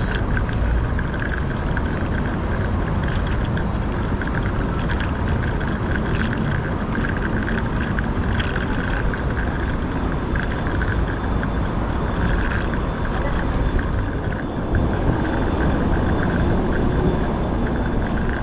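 Steady rumble of wind and road noise picked up while riding a Segway Ninebot Max electric kick scooter amid city traffic, with a few short ticks and rattles here and there.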